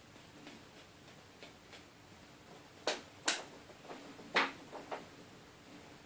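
Sharp clicks and taps from handling the parts of a disassembled BlackBerry Z10 phone and setting small parts down on a wooden desk. Two loud clicks come about three seconds in and the loudest about four and a half seconds in, with a few fainter taps after it.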